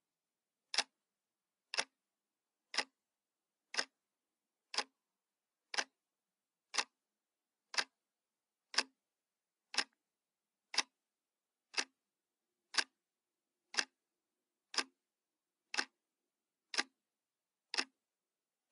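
Clock ticking sound effect of a countdown timer: short, sharp ticks, evenly spaced at one a second, all alike.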